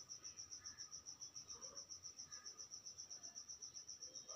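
A cricket chirping in the background: a faint, high-pitched, evenly pulsed trill of about seven pulses a second, keeping up steadily.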